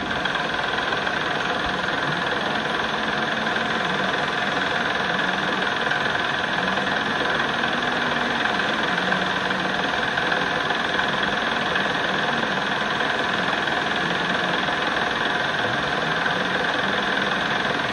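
Metal lathe running steadily at speed, spinning a Bosch alternator rotor to turn down its copper slip ring. It gives an even hum with several fixed tones.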